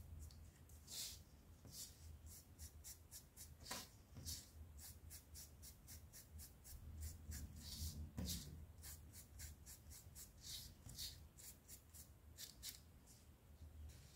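Faint, irregular soft dabs and rubs of a paint-loaded foam sponge on EVA foam petals, over a low steady hum.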